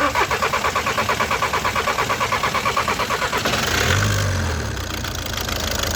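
Skoda diesel engine being cranked on the starter motor, pulsing about seven times a second. About three and a half seconds in it fires, flares up briefly and settles into a steady idle. This is the first start after a replacement injector was fitted to cure a misfire.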